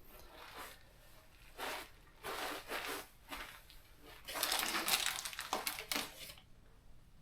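Several short rasping, scraping sounds of metal shelf hardware being worked and tightened into place, with a longer run of scraping about four to six seconds in.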